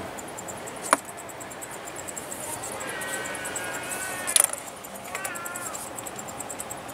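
Sharp metallic clicks from a hose fitting and its connector being handled by hand at an engine's vacuum pump: one click about a second in, then a quick clatter of clicks a little past four seconds.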